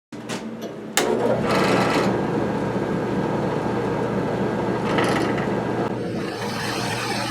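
A machine running steadily with a low hum and a busy rattling noise, with a sharp knock about a second in.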